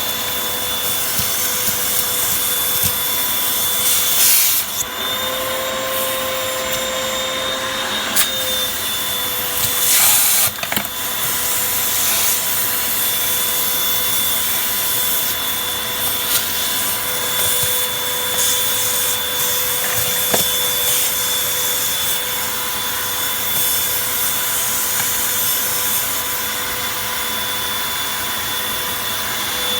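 Vacuum cleaner running steadily, sucking up dirt, with a constant motor whine over the rush of air. There are brief louder surges of rushing noise about four and ten seconds in, and the whine rises slightly in pitch between about five and eight seconds.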